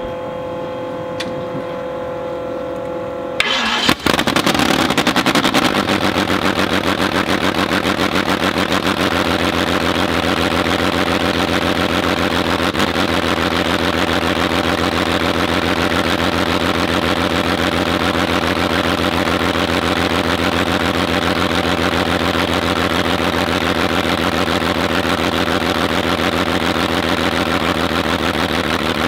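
Roberts six-cylinder two-stroke aero engine starting on a test stand: a steady hum for the first few seconds, then about three and a half seconds in the engine catches suddenly and settles into a loud, steady run with a fast, even firing beat.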